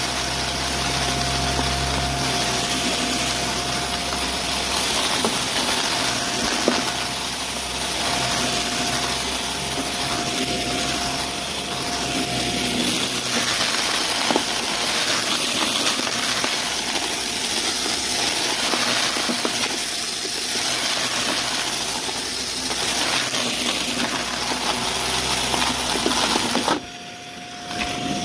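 Vacuum cleaner running with its brushroll spinning, sucking up crunchy debris with scattered crackles and clicks over a steady motor whine and rush of air. The sound drops off briefly near the end.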